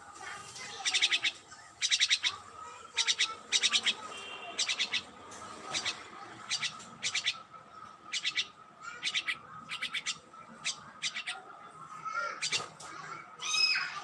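A myna calling: a run of short, harsh, rasping notes, many in quick pairs, loudest in the first few seconds, turning to a couple of rising calls near the end.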